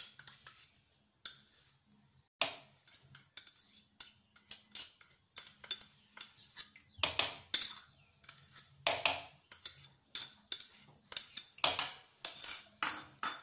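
A metal spoon scraping and clinking against a small ceramic bowl as yogurt is scooped out into a mixing bowl: an irregular run of scrapes and taps, with several louder clinks in the second half.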